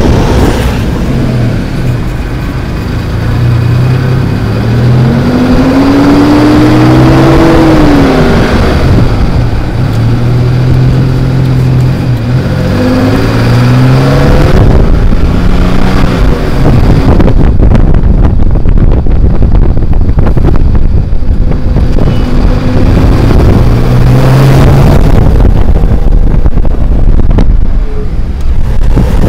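Toyota 3.4 L 5VZ-FE V6 running under load as the truck is driven. The engine note climbs and drops several times as it accelerates and shifts. It is burning off Sea Foam intake cleaner, which sends thick white smoke out of the exhaust.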